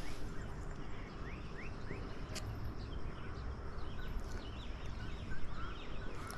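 Outdoor ambience of birds chirping in runs of quick, short gliding calls, over a steady low rumble of wind on the microphone.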